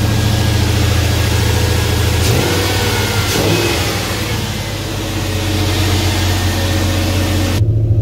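LS V8 engine swapped into a 1992 Chevy pickup, running at idle. Its pitch briefly shifts about two to three seconds in.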